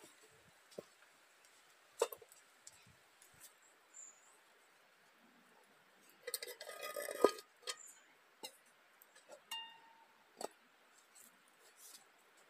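Scattered light clicks and knocks, with a brief burst of clinking about six seconds in, like hard objects tapping together.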